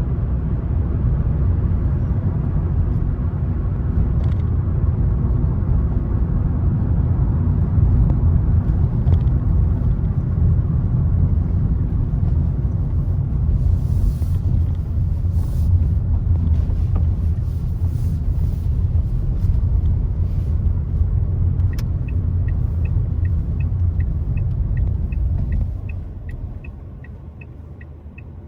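Road and tyre noise of a car driving, heard inside the cabin as a steady low rumble. About two-thirds of the way through, a regular ticking starts at about two ticks a second and keeps going. Near the end the rumble drops away sharply.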